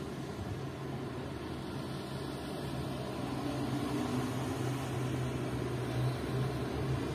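Motorboat engine running as the boat cruises past: a steady low hum that grows a little louder from about three seconds in.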